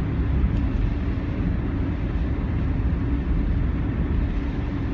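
Steady low rumble of the air inside a narrow road tunnel, with a couple of faint ticks about half a second in.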